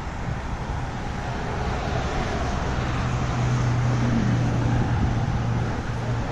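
Road traffic: a passing vehicle's steady engine hum that grows louder around the middle and eases off near the end, over outdoor background noise.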